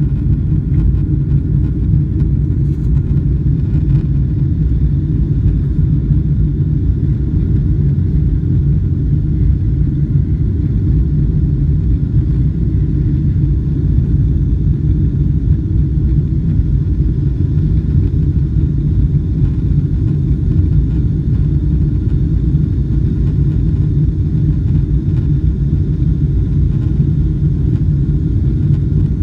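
Steady low rumble heard inside the cabin of a Boeing 777-300ER airliner: the noise of its engines and the airflow around the plane, unchanging in level.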